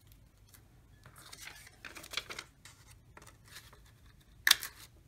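Glossy magazine paper rustling as it is handled and fed into a small plastic craft punch, then one sharp snap about four and a half seconds in as the punch cuts out a small circle.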